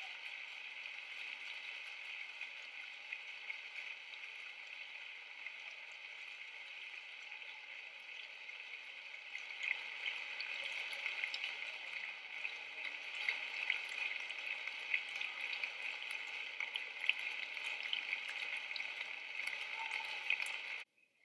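Audience applauding: dense, even clapping that grows a little louder about halfway through and cuts off suddenly near the end.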